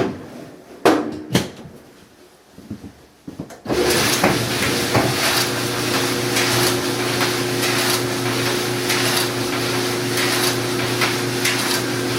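A few sharp knocks, then about four seconds in a GE clothes dryer starts up and runs steadily with a motor hum and the drum turning on its newly replaced belt, a sign the belt job has brought the dryer back to working.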